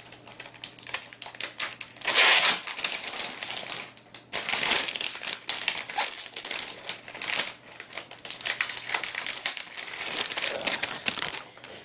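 Packaging crinkling and rustling as the wrapping is pulled off a keyboard dock, in irregular crackly bursts. The loudest burst is about two seconds in.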